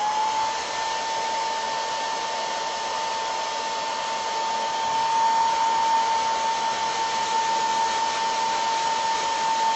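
Handheld hair dryer running steadily, a constant motor whine over the rush of air, blowing on a ceramic spoon to dry its crackle finish.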